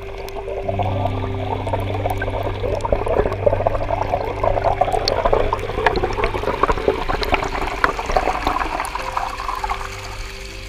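Water splashing and trickling over rocks in a mountain stream, swelling about a second in and easing off near the end, with steady low background music underneath.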